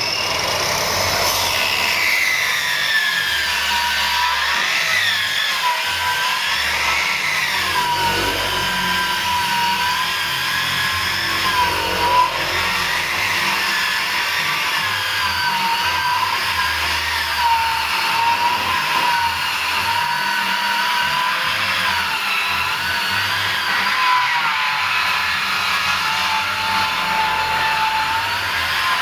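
Power saw ripping a wooden beam lengthwise. Its motor whine runs continuously, with small dips and wobbles in pitch as the blade takes the load.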